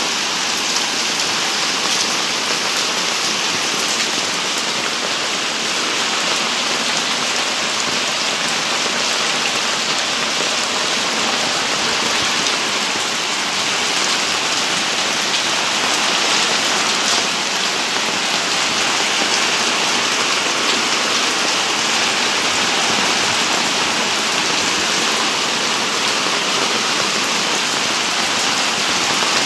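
Water pouring steadily through a rainwater filter's PVC pipework and splashing down a clear outlet tube, an even rushing that does not let up.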